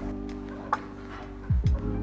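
Background music of steady held notes, with a low falling sweep about one and a half seconds in and a single short click near the middle.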